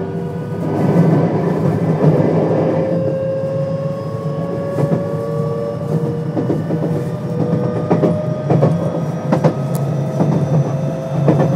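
Inverter and traction-motor whine of a JR West 521 series electric train with Toshiba IGBT-VVVF control, heard from inside the car. The pitch rises slowly as the train gathers speed, over a low running rumble, with wheels clicking over rail joints several times in the second half.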